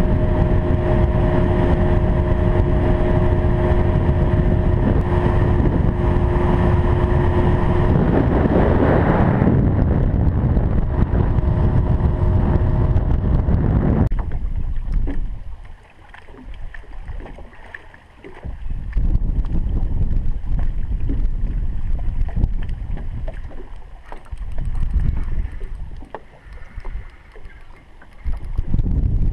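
Evinrude outboard motor running steadily as the aluminium boat moves, shutting off about halfway through. After that, gusty wind buffets the microphone.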